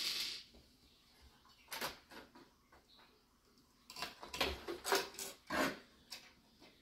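Scattered clicks, knocks and a brief scrape of hardware being handled inside a desktop PC case as the old motherboard is worked loose, with a quick run of knocks in the second half.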